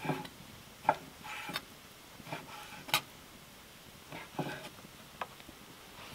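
Kitchen knife cutting bear fat into cubes on a wooden cutting board, with cubes of fat dropped into a metal roasting pan: about ten irregular knocks and taps, some with a brief ring.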